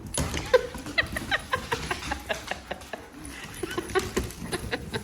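Pets scrambling about: a busy run of sharp clicks and taps mixed with short, high-pitched calls.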